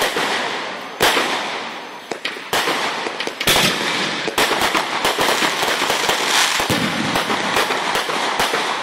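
Fireworks going off in quick succession. A few sharp separate bangs come first, then from about halfway through there is a dense run of rapid crackling pops as the bursts shower sparks.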